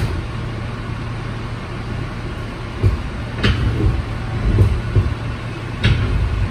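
Subway car running on the rails, heard from inside the car: a steady low rumble with several sharp clacks and knocks from the wheels and car body, bunched between about three and six seconds in.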